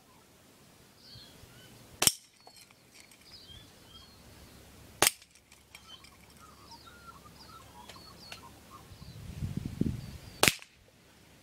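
Three shots from a .177 air rifle, each a sharp crack, about 3 seconds and then 5.5 seconds apart. Birds chirp faintly between the shots, and a low rumble rises in the second before the last one.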